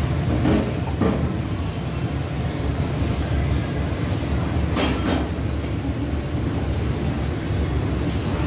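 A Chinese cleaver slicing char siu pork and knocking on a wooden chopping board: a few sharp knocks, two close together about five seconds in, over a steady low rumble.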